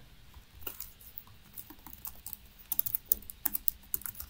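Typing on a laptop keyboard: irregular keystrokes, with a quicker run of louder taps a little past halfway.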